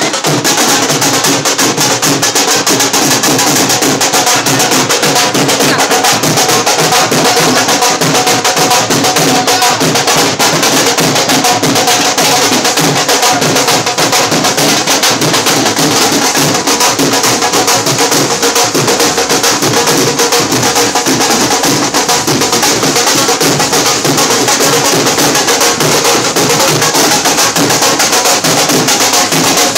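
Several dhols, Indian double-headed barrel drums beaten with sticks, played together in a loud, fast, unbroken rhythm.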